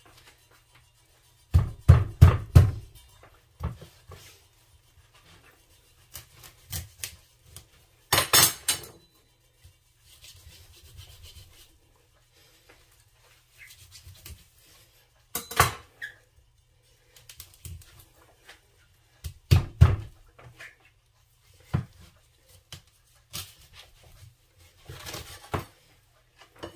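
Irregular knocks, taps and clinks of a knife, utensils and dishes on a cutting board and counter, some in short clusters a few seconds apart.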